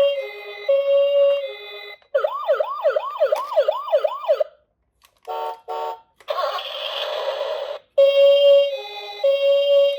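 A toy ambulance's electronic siren giving a fast rising-and-falling wail, about two and a half sweeps a second, set between stretches of a looping background tune. After a short gap come two brief electronic tones and then a burst of hiss lasting about a second and a half.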